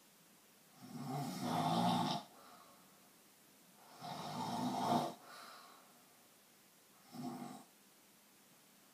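Snoring: three snores about three seconds apart, the first two long and loud, the third short and fainter.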